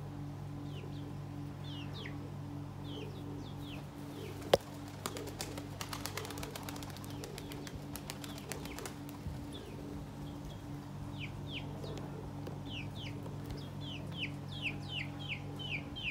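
Small birds chirping in short, quick downward notes, scattered at first and coming thick and fast near the end, over a steady low hum. About four and a half seconds in there is one sharp click, the loudest sound, followed by a few seconds of rapid clicking.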